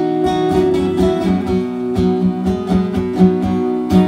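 Acoustic guitar strummed in a steady rhythm, chords ringing between sung lines.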